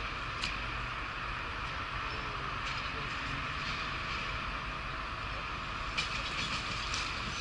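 Siemens Desiro diesel multiple unit approaching slowly, a steady running noise with occasional sharp clicks of wheels over rail joints and points, the clicks coming closer together near the end.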